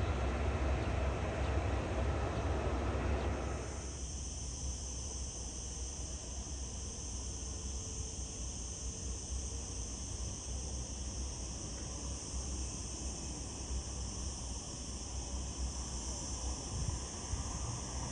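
Airport noise from jet airliners on the apron for the first three or four seconds. Then a steady high-pitched buzz of insects over a low wind rumble.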